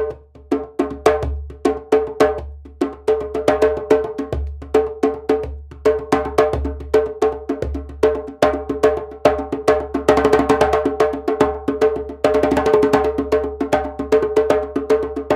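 Rawhide-headed wooden djembe (Fuzeau Djembé Mali) played with bare hands: a fast, unbroken rhythm of deep bass strokes, ringing open tones and sharp slaps, the head ringing at one steady pitch. About ten seconds in, and again from about twelve seconds, the slaps come brighter and denser, in quick rolls.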